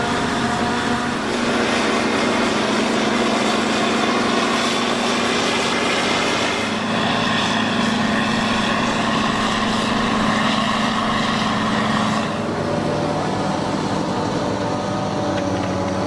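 John Deere 7400 running steadily while harvesting maize: a continuous engine drone with a hiss of machinery over it, easing slightly about twelve seconds in.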